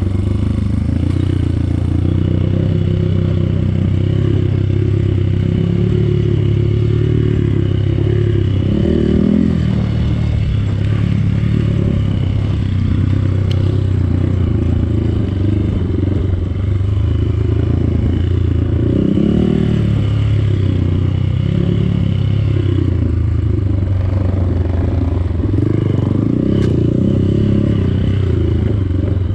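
Dirt bike engine running continuously on a rough trail, the revs rising and falling with the throttle several times, with rattling and scraping from the bike over the terrain.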